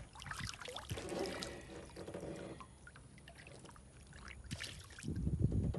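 Water splashing and sloshing as hands work a largemouth bass in the water beside the boat to release it, irregular and strongest in the first couple of seconds. Louder low rumbling and knocking comes in near the end.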